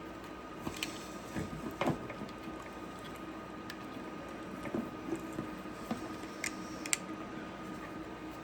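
A few scattered light clicks and taps from handling small plastic parts and screws, over a steady faint hum.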